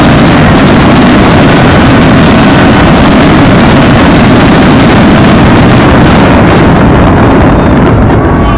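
Loud, distorted continuous roar and hiss of fireworks fountains shooting columns of sparks, overloading the microphone; the hiss thins out near the end as the fountains die down.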